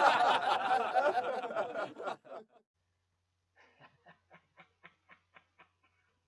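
A burst of laughter that fades out about two seconds in. After a short pause comes soft, rhythmic laughing, about four pulses a second, lasting around two seconds.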